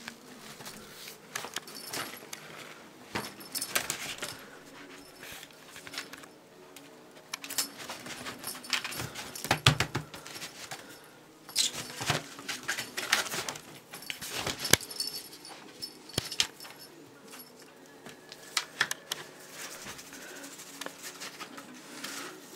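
Scottish straight kitten scuffling, scratching and pouncing on a fabric surface while chasing a feather wand toy, with light metallic clinks from the toy's clip. The noises come in irregular clusters, busiest around the middle.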